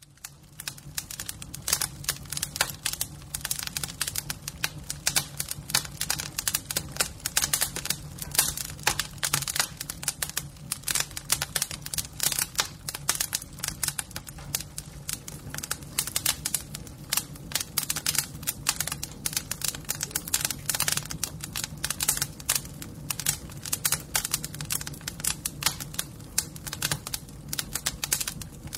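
Fire crackling: a dense, irregular stream of sharp pops and snaps over a steady low rumble, starting abruptly.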